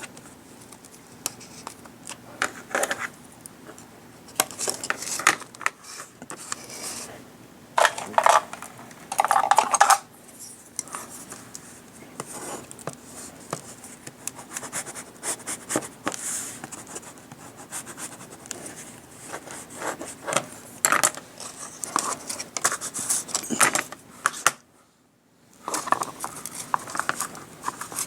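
Craft work on a table: small tools and materials clicking, tapping and scraping, with short bursts of rubbing and rustling at irregular intervals. The sound drops out briefly near the end.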